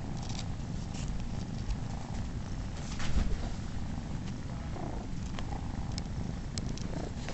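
Steady low purring from cats close to the microphone, an adult male cat with kittens nursing on him. A few small clicks and a brief rustle about three seconds in.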